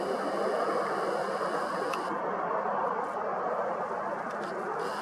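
Distant twin-engine jet airliner running its engines at takeoff thrust on the runway: a steady rushing roar. A faint high steady whine stops about two seconds in and comes back near the end.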